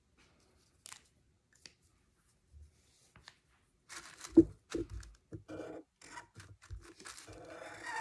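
Tracing paper rustling and a thump as a hand comes down on it about halfway through, then a black marker scratching in short strokes over the tracing paper laid on a paper plate.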